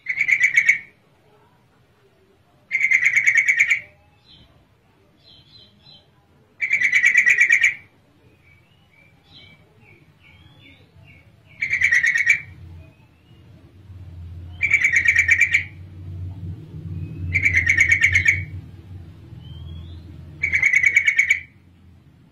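Female yellow-vented bulbul (trucukan) calling: seven harsh, buzzy chatters, each under a second, about every three to four seconds, with faint short chirps between them. A low rumble sits under the calls in the second half.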